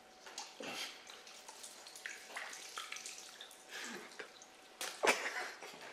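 Water splashing and sloshing in short irregular bursts, with a louder splash about five seconds in.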